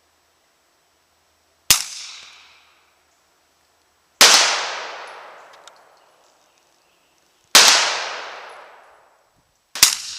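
Four suppressed shots from a .45 ACP 1911 pistol firing handloaded rounds, about two to three seconds apart, each a sharp crack that trails off over about a second.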